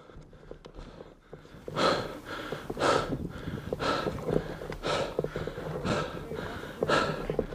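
Heavy, hard breathing close to the microphone, a loud breath about once a second starting about two seconds in: a player out of breath from exertion.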